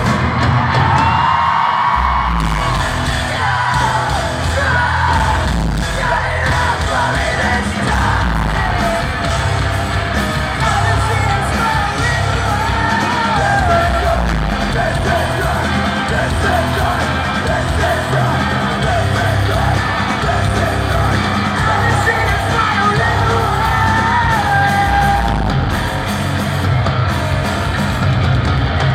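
Post-hardcore band playing live, with a singer's sung and yelled vocals over distorted guitars, bass and drums. The sound is loud and heavily reverberant, as in a large hall.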